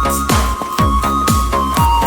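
Electronic dance music with a steady kick drum, a little over two beats a second, under a held high synth note.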